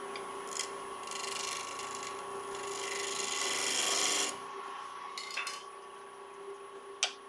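Wood lathe spinning a wet cherry blank with a steady motor whine while a gouge cuts the outside of the cup. The cutting hiss is loudest from about one to four seconds in, with shorter cuts after that and a sharp tick near the end.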